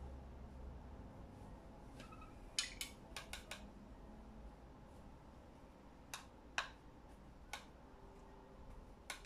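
Light clicks and taps of small hard objects being handled on a painting table: a quick cluster of about six ticks around three seconds in, then single ticks spaced a second or so apart, over a faint low hum.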